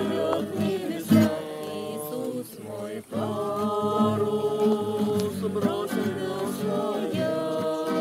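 A small group of men and women singing a song together to an acoustic guitar, with long held notes over the guitar's plucked accompaniment.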